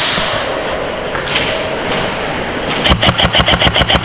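Airsoft electric gun firing on full auto: a rapid, even string of shots at about ten a second, starting near the end.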